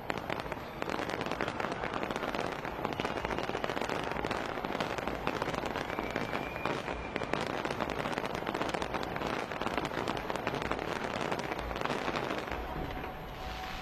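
Fireworks crackling densely, a rapid, continuous mass of pops and sparkle crackle that thins out near the end.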